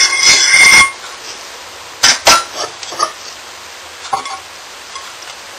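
A metal fork scraping and stirring in a frying pan, worked gently so as not to scratch the pan, with ringing clinks for about the first second. After that come a few light taps and clinks of pan and utensils.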